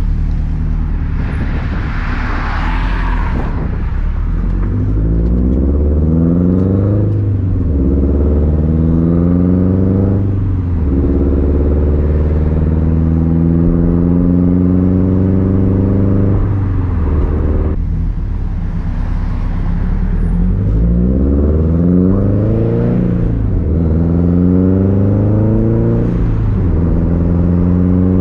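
Subaru WRX STI flat-four engine through a Tomei Expreme unequal-length exhaust under hard driving, with a deep rumble. Its pitch climbs and then drops off sharply again and again, with a longer steady stretch in the middle. A burst of hiss comes about two seconds in.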